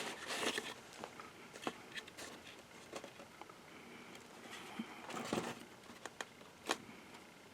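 Faint scattered taps and soft rubbing of hands handling a glued paper box while wiping excess glue off it.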